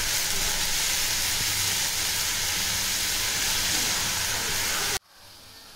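Chopped banana flower and onions frying in sesame oil in a pan, a steady sizzle that cuts off suddenly near the end.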